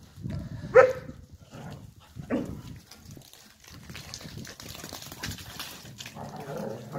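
Dog barking: two short barks, the first and loudest about a second in, the second about a second and a half later.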